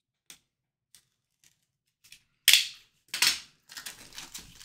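Handling a trading-card tin and its packaging: a few light clicks, then two sharp snaps about two and a half and three seconds in, followed by faint rustling.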